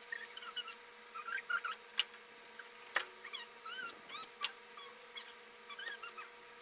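Dogs whining and yipping in rapid, high squeaky calls, with a few sharp clicks about two, three and four and a half seconds in.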